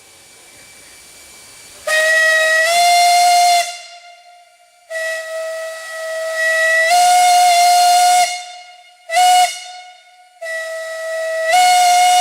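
Steam whistle sounded in four blasts, long, long, short, long: the pattern of a railroad grade-crossing signal. Several of the blasts step up slightly in pitch partway through.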